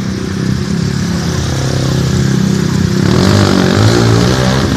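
Motorcycle engine of a tricycle (motorcycle with sidecar) running under way in traffic, heard from the ride; it holds a steady pitch, then from about three seconds in its pitch rises and falls.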